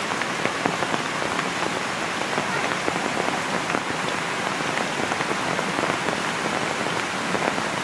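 Rain falling steadily, a dense patter of many small drops.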